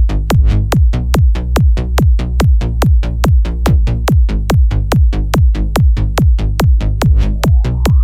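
Loud electronic dance music from a Chinese club DJ mix: a fast, steady, pounding kick-drum beat with hits between the kicks. About seven seconds in, a rising sweep begins to build.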